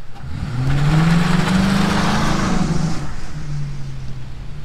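2004 Mercury Grand Marquis's 4.6-litre V8 accelerating hard away on wet pavement, the engine note rising within the first second, holding, then easing off about three seconds in. A loud hiss of tyres on the wet surface comes with it. It is a launch to test the newly installed Trac-Lok locking rear differential.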